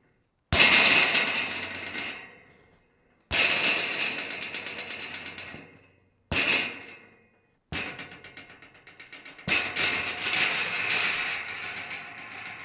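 Scrap metal rattling and clattering in five separate bursts, each starting suddenly and dying away over a second or two; the fourth is a quicker, jittery rattle.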